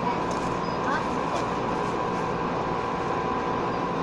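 Running noise of a JR 117-series electric train heard from inside the car: a steady rumble with a faint steady tone over it.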